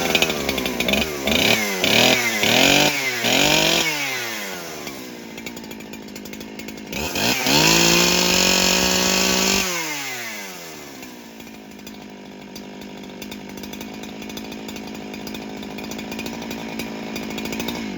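Husqvarna 365 two-stroke chainsaw running again after a carburetor clean and new gaskets cured its no-start. It gives about five quick throttle blips, settles to idle, revs up and holds high for a couple of seconds about seven seconds in, then drops back to a steady idle.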